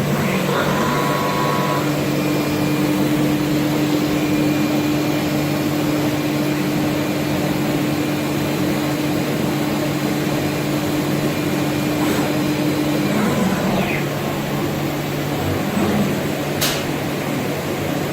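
HOMAG BOF 41/K CNC machining center running: a steady mechanical hum, with a held tone that comes in about two seconds in and stops about two-thirds through. A short hiss comes near the end.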